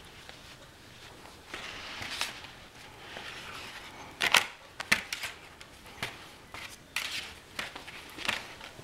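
Puppy play with a plastic cone collar and a rope toy: rustling and scuffling, with scattered sharp plastic knocks and clicks as the cone and rope bump against the hand and camera. The loudest knocks come a little over four seconds in and again just before five seconds.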